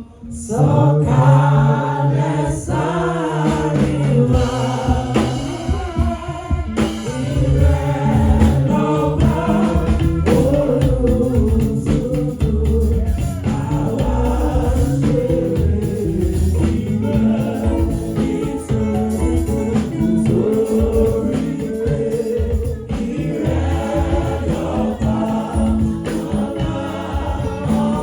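Choir singing gospel music with instrumental backing and a steady bass beat.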